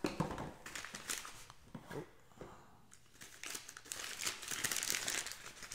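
Packaging wrap crinkling and rustling as a small part is unwrapped by hand. It comes in two spells of irregular crackles with a short lull between them.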